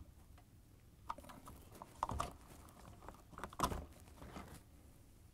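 Scattered light clicks and knocks of hard plastic parts and corrugated hose being handled and pried with a screwdriver. The clearest knocks come about two seconds in and about three and a half seconds in.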